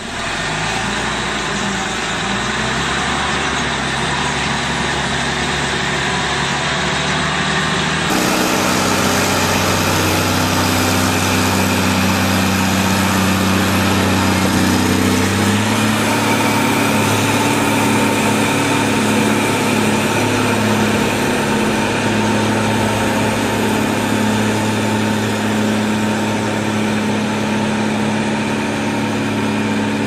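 Diesel engines of heavy earthmoving machines running steadily, the engine note changing abruptly twice as one machine's sound gives way to another's.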